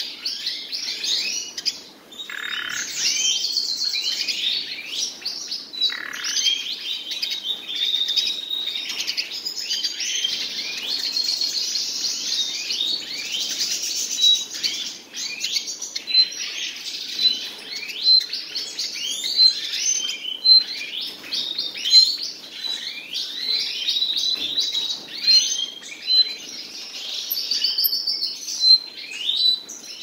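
Nightingale singing: a continuous rush of fast, varied phrases, with a series of sharp repeated notes at a steady pace in the second half.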